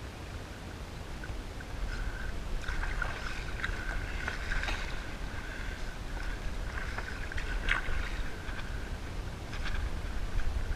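Kayak being paddled: the paddle blade dipping and water splashing and trickling at irregular moments, over a low wind rumble on the microphone.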